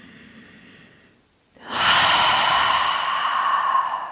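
A woman's deep breath: a soft inhale, a brief pause, then from about one and a half seconds in a long, loud releasing exhale, a sigh that fades near the end.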